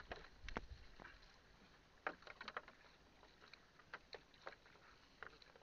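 Faint water sloshing and paddle splashes around a small outrigger canoe being paddled on choppy sea, with scattered light knocks and clicks against the hull at irregular moments while a gill net is set.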